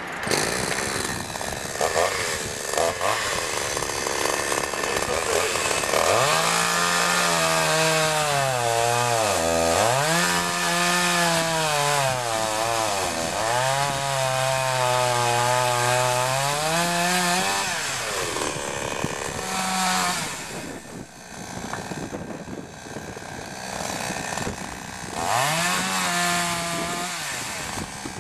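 AMA 4518 18-inch two-stroke petrol chainsaw running at high revs and cutting through wood. The engine note sags as the chain bites and rises again several times. It drops back after about 18 seconds and revs up again near the end.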